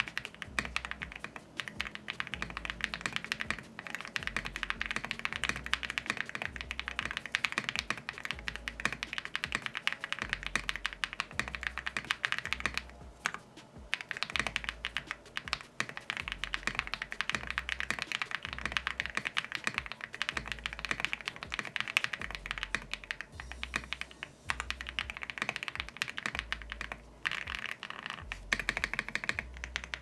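Continuous typing on a Tiger80 Lite mechanical keyboard fitted with Akko Cream Yellow V3 linear switches and Kat Monochrome keycaps: a dense, clacky run of keystrokes, with a brief pause about thirteen seconds in.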